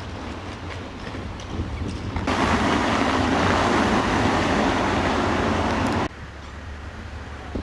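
Wind rumbling on the microphone, then from about two seconds in a car's tyres running loudly over cobblestones, a steady rushing noise that cuts off suddenly about six seconds in.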